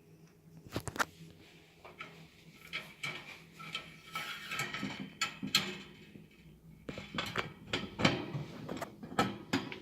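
Pet bird moving about in its cage and coconut-shell hideout: irregular knocks, taps and clatter, with a few brief high chirps about four to five seconds in.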